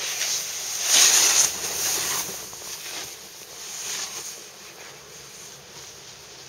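Snowboard edge scraping and hissing through soft spring mogul snow in a string of turns, loudest about a second in, then fading as the rider moves away.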